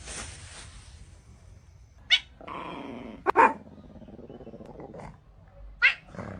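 A dog barking: three short, sharp barks, the middle one the loudest, with a lower drawn-out sound just before it.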